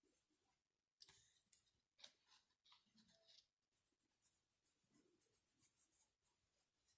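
Near silence with faint scratching and a few light clicks: small hand-work noises at a craft table.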